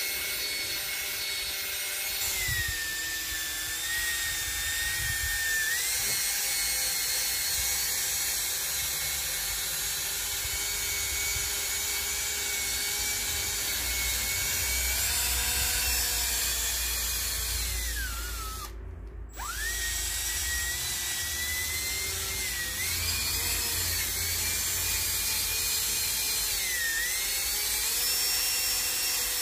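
Cordless drill spinning a foam polishing pad against a plastic headlight lens with rubbing compound: a steady motor whine that sags in pitch when pressed harder. It stops for a moment about two-thirds of the way through, then runs again.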